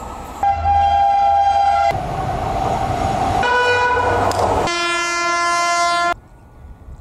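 Electric locomotive air horns sounding as express trains run through: three long horn blasts, the last one lower-pitched, each starting and stopping abruptly. Between the first two blasts there is the rumble of a train running past. Near the end everything drops to a much quieter background.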